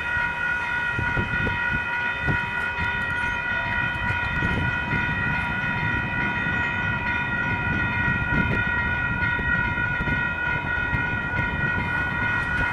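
Railroad crossing warning bell ringing steadily and without a break, over the low rumble and clatter of a train passing through the crossing.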